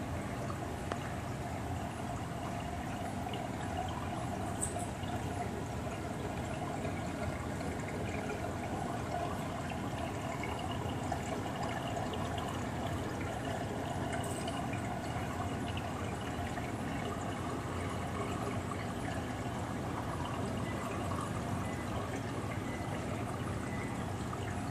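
Steady trickle and splash of water running through a large reef aquarium's circulation system.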